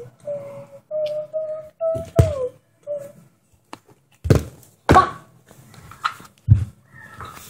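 A small plastic bottle thunks onto a rug-covered floor four times as it is flipped and lands. During the first three seconds a person hums a few held, wavering notes.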